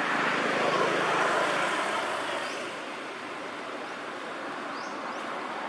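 Steady outdoor rushing noise that swells over the first second or two and then eases to a lower steady level.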